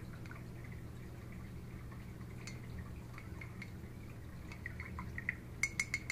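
Paintbrush being rinsed in a ceramic mug of water to wash out acrylic paint, with light water sounds and faint ticks. Near the end the brush taps the mug's rim in a quick run of sharp, ringing clinks.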